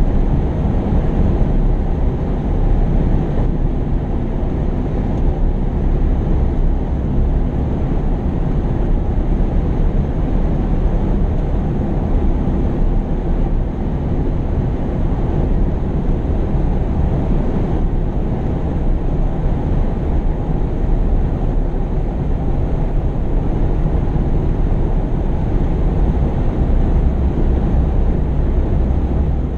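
Diesel engines of heavy earth-moving machinery running steadily.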